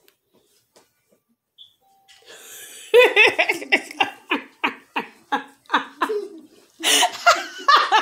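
Hearty laughter in a quick run of short bursts, about three a second, starting about three seconds in and growing louder and higher near the end.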